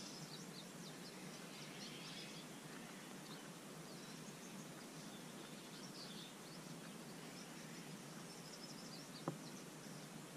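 Faint outdoor ambience: a steady soft hiss with small birds chirping now and then, and a single sharp click about nine seconds in.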